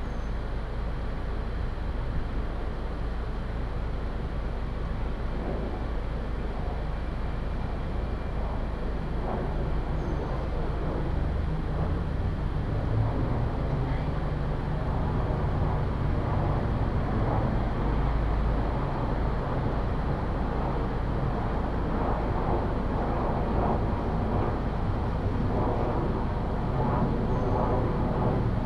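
Steady road traffic noise from passing trucks and cars, a continuous low rumble that grows a little louder in the second half.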